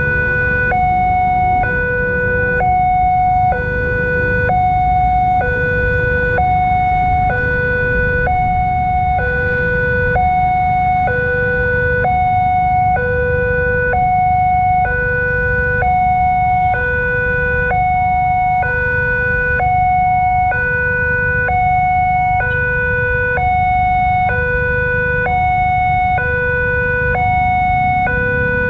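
Railway level-crossing warning alarm sounding continuously in a two-tone hi-lo pattern, a higher and a lower tone alternating about once a second, much like an ambulance siren, over a steady low rumble.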